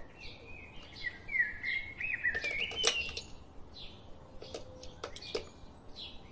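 Birds chirping in the background, a run of short gliding chirps in the first half. Over them come a few sharp plastic clicks as AA batteries are pressed into a toy's battery compartment, one about three seconds in and a cluster a little after five seconds.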